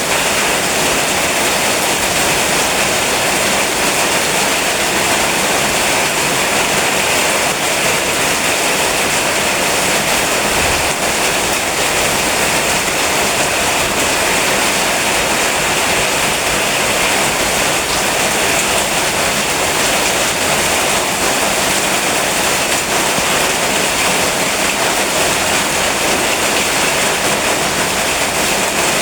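Steady rain falling, a continuous even hiss without breaks.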